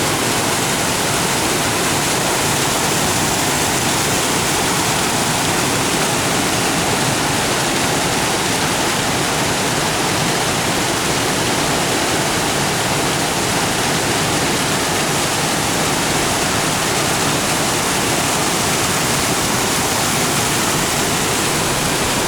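Mountain brook rushing over rocks and small cascades, a steady full rush of water with no change in level.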